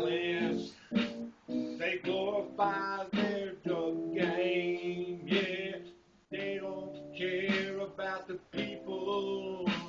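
Music from an electronic keyboard: a melody played in short phrases, with a brief pause about six seconds in.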